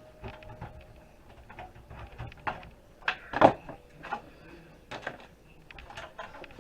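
Wires being ripped out of a desktop computer case by hand: irregular clicks, knocks and rattles of plastic connectors and the metal chassis, the loudest knock about three and a half seconds in.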